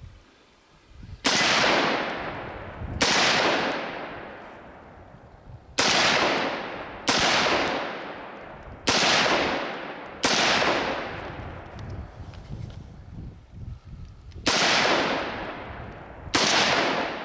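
.300 Blackout AR pistol firing eight semi-automatic shots of 150-grain ammunition at an uneven pace, one to four seconds apart. Each loud report trails off in an echo lasting about a second.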